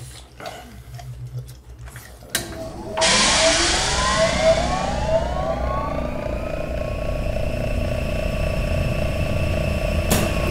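Faint scattered clicks, then about three seconds in a loud electronic sound effect starts suddenly. A burst of hiss comes with many tones sliding up, and they settle into a steady, sustained chord.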